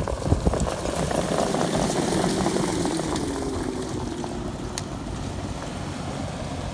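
A field of harness-racing pacers and their sulkies passes at speed on the dirt track: a rush of hoofbeats and wheel noise with sharp hoof strikes in the first second or so. Then a following vehicle's engine passes, its pitch falling.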